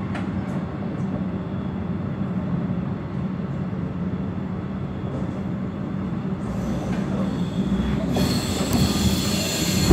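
Passenger train's wheels running on the rails, heard from inside the carriage: a steady rumble that grows louder and more rattly from about seven seconds in, as the train starts over a set of points to change track.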